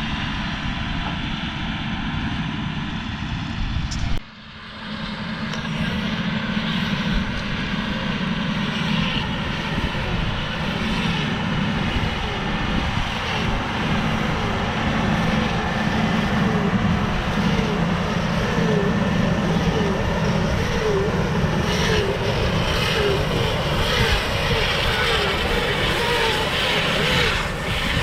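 Farm tractor engine running steadily under load, with a brief drop in level about four seconds in.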